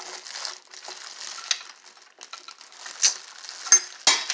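Clear plastic bag crinkling in the hand under the chute of a triple-head bulk candy machine, with sharp clicks and clacks as the machine's coin mechanism is turned and a portion of peanut M&Ms drops into the bag; the loudest clack comes near the end.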